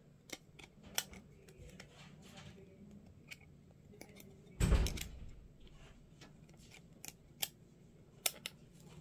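Small clear acrylic plates and their plastic film being handled: scattered light clicks and taps, with one louder thump about halfway through.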